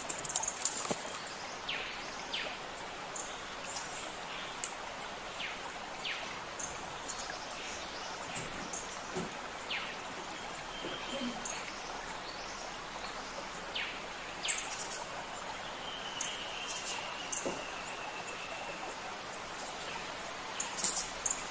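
Steady outdoor background hiss with scattered short bird chirps and one longer thin whistle partway through; a few light handling clicks and rustles of the cardboard tube and spray can near the start and near the end.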